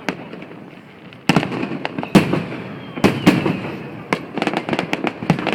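Aerial fireworks bursting: three heavy bangs about a second apart, then a rapid run of crackling pops from many small bursts.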